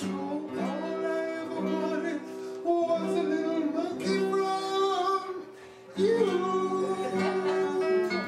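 A song with acoustic guitar chords and a voice singing over them.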